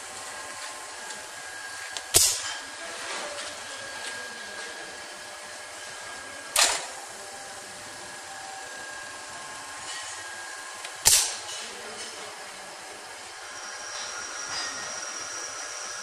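Pneumatic brake rig firing three times, about four and a half seconds apart: each time the 3/2 solenoid valve switches and compressed air at 6 to 8 bar drives the brake cylinder, giving a sharp clack with a brief rush of air. Underneath runs a faint steady whine.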